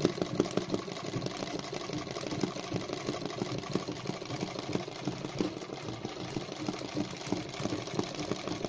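Old sewing machine running steadily, its needle stitching an embroidery pattern with a rapid, even clatter.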